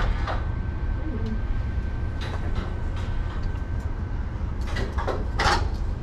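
Eiffel Tower passenger lift cabin moving along the tower: a steady low rumble with a thin whine that stops about two-thirds of the way through. A few short clicks or knocks sound over it, the loudest near the end.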